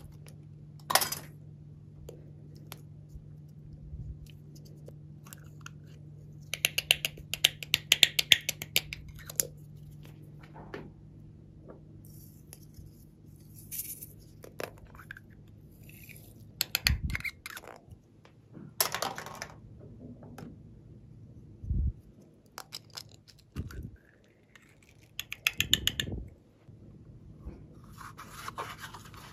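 Small plastic slime containers being handled and opened, with scattered clicks and taps and a run of fast crackling clicks about eight seconds in. A low steady hum runs underneath.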